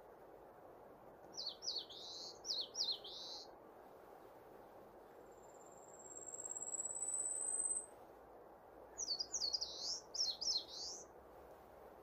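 A songbird sings two short phrases of quick, down-slurred whistled notes, one a second or so in and another near the end. Between them a thin, very high buzzing note rises slightly for about two seconds, all over a steady background hiss.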